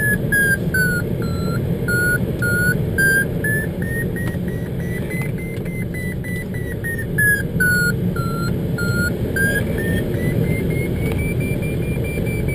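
Glider's audio variometer beeping, its pitch sinking and rising twice as the climb rate changes, over a steady rush of airflow past the cockpit.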